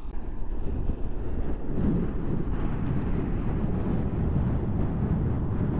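Wind buffeting the microphone outdoors: a dense, uneven low rumble without any clear engine note.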